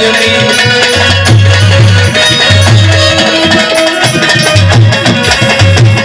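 Instrumental passage of live Haryanvi ragni folk music: a dholak drum beats a steady rhythm under a held melody line.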